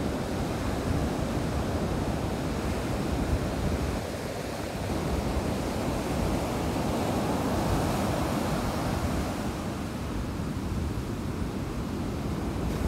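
Ocean surf breaking and washing up a sandy beach in a steady hiss, with wind rumbling on the microphone; the wash swells louder about eight seconds in.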